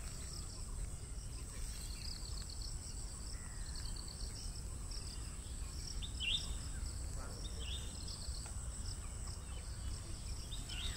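Outdoor nature ambience: insects keep up a steady high-pitched buzz with short pulsing trills, a bird gives a few brief chirps, and a constant low rumble sits underneath.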